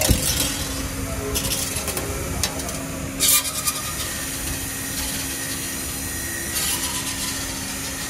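ST35-12R CNC wire bending machine running as it feeds and bends a 4.5 mm wire: a steady machine hum with a sharp clack at the start and several bursts of hissing, scraping noise as the wire is worked.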